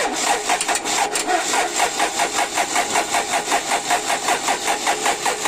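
Diesel engine being cranked on its starter motor without firing, a steady churning pulse about five times a second that stops near the end. The injection pump's delivery valves are open for a spray test, and the freshly calibrated pump's plungers deliver no diesel.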